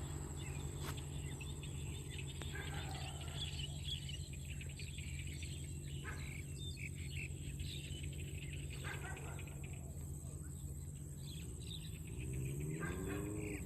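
Honda CB650F inline-four with an Eagle aftermarket exhaust idling steadily, with a short rise in revs near the end. Birds chirp over it.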